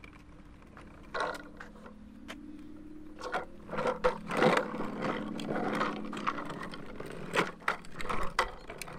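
Hard plastic wheels of a toddler's ride-on trike rolling and scraping over rough asphalt, a rattling rumble with scattered clicks and knocks, loudest in the middle.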